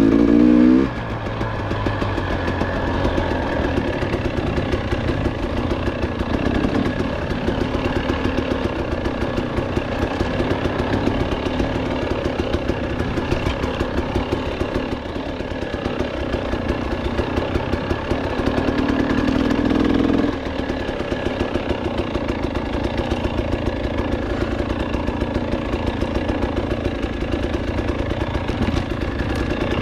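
KTM 300 XC two-stroke dirt bike engine running at low revs, rising briefly in the first second and again for about two seconds about two-thirds of the way through before dropping back.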